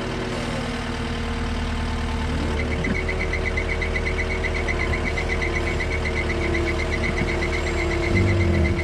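Tracked skid steer loader's engine running steadily, its speed stepping up about two and a half seconds in and then holding.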